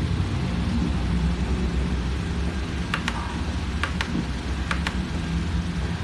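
Three pairs of short, sharp clicks about a second in the middle, mechanical keyboard keys being pressed and released, over a steady low rumble.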